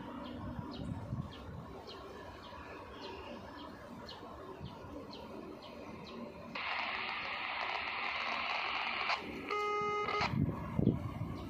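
Low rumble of a DF4B diesel locomotive idling in the distance, with birds chirping. About seven seconds in, a burst of radio hiss lasts a couple of seconds and ends in a short beep.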